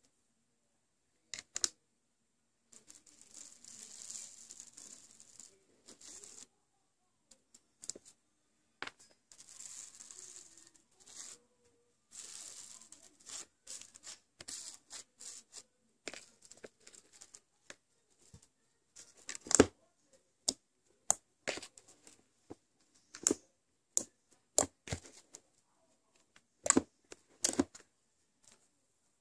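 Foam-bead slime squished by hand in a plastic tub: stretches of fine crunchy crackling as the beads are pressed, then a run of sharp clicks and pops in the second half.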